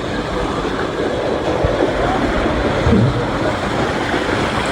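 Steady rushing and rumbling noise of moving water, with wind buffeting the phone's microphone.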